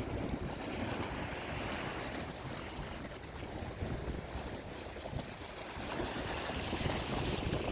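Sea waves washing onto a rounded-pebble beach, swelling and easing as each wave comes in, with wind buffeting the microphone.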